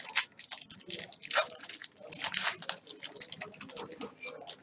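Foil wrapper of a football trading-card pack being torn open and crinkled, a quick irregular run of crackles and rustles.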